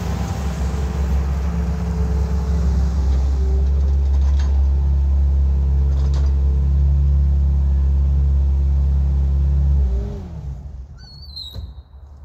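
Compact track loader's diesel engine running, its pitch stepping down about four seconds in, then winding down and shutting off about ten seconds in.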